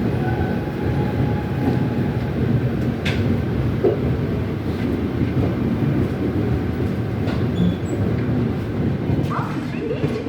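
Indian Railways passenger coaches rolling along the platform track with a steady rumble.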